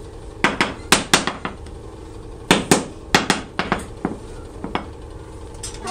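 A hammer tapping, about a dozen sharp knocks in uneven clusters with a short ring after each, over a faint steady hum; typical of sand-mould work in a foundry.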